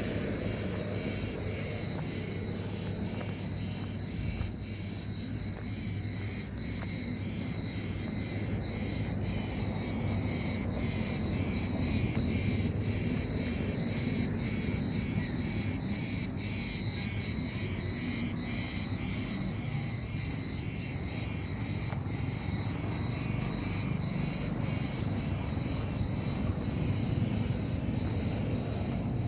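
A loud, steady high-pitched insect chorus, pulsing evenly a few times a second, over a low rumble.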